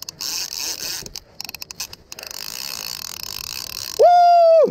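Conventional fishing reel being cranked, its gears and pawl clicking and whirring in a choppy run. About four seconds in, a loud, brief pitched tone rises, holds for under a second and falls away.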